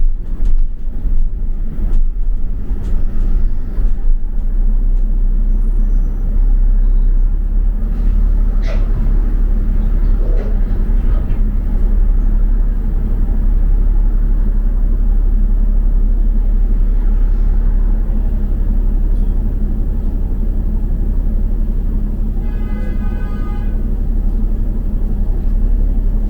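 Steady low rumble of a double-decker bus's engine and road noise, heard from inside while riding. Near the end a short buzzing electronic tone sounds for about a second and a half.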